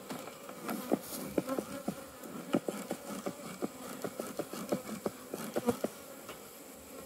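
Honeybees buzzing over an open hive, with many short buzzes coming and going irregularly as bees fly close by.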